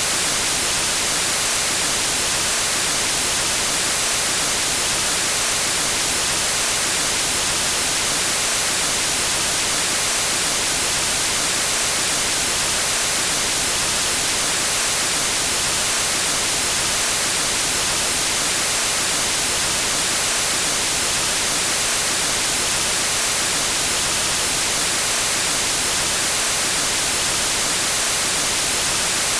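Steady hiss of TV static white noise, even and unchanging, brightest in the high frequencies.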